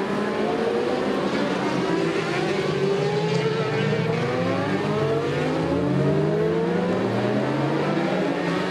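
Supersport racing motorcycles accelerating out of a corner, several engines overlapping, each rising in pitch through the gears and dropping back at each upshift.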